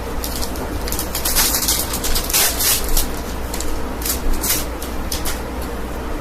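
Trading cards and foil booster-pack wrappers being handled: several short spells of crisp crinkling and rustling over a steady low hum.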